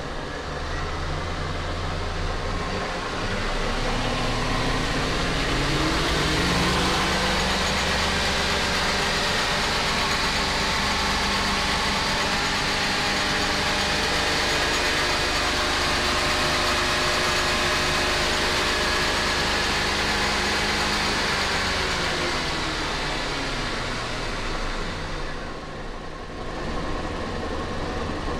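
Twin MerCruiser 5.0 V8 inboard boat engines running in the open engine compartment. Their pitch rises a few seconds in as the revs come up, holds steady at the higher speed, then falls back to idle a few seconds before the end.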